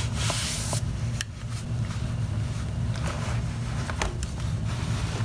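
Handling noise from a hand on a PowerBook 1400's plastic case: a brief rubbing rush in the first second, then a few light clicks. A steady low hum runs underneath.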